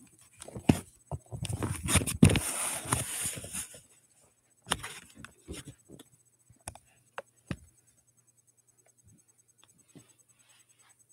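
Handling noise: rustling and clattering for about the first four seconds, then a handful of separate sharp clicks and knocks, then it goes nearly quiet.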